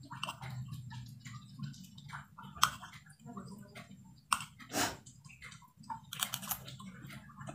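Eating sounds: scattered irregular clicks and scrapes of a metal spoon on a ceramic plate of rice, with a few louder knocks, over a steady low hum.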